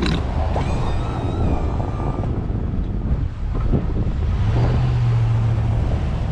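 Engine of snow-clearing equipment running under load, with wind buffeting the microphone. A thin high whine starts sharply and fades over the first two seconds, and a steady low hum rises out of the rumble about four and a half seconds in.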